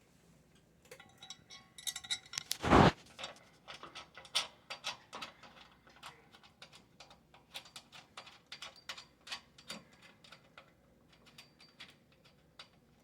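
Irregular metallic clicks, clinks and taps of bolts and a handle being fitted to a steel tool box, with one loud knock about three seconds in.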